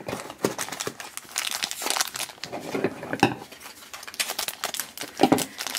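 Crinkling of the shiny plastic wrapper of a Shopkins blind-basket pack as it is handled and cut open with scissors: irregular crackles with a few sharper clicks.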